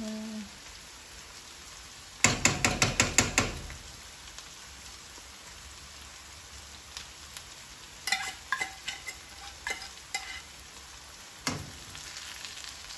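A metal spoon and a tin can of liver spread knock together as the spread is emptied into a frying pan. There is a quick run of about eight sharp knocks about two seconds in, then lighter ringing metal taps around eight to ten seconds, and one more knock near the end. Underneath runs a faint steady sizzle from the pan.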